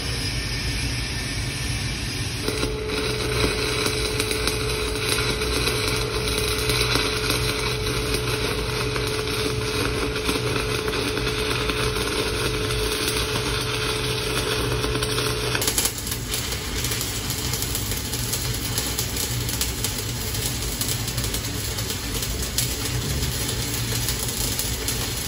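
Stick-welding arc from a 1/8-inch 6010 electrode crackling and sputtering steadily as the rod is run with a whipping motion.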